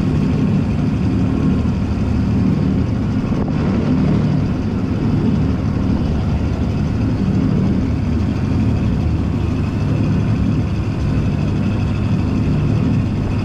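Hydra-Terra amphibious tour vehicle's engine running steadily under way on water, a low, even drone, with the rush of water from the wake and wind noise over it.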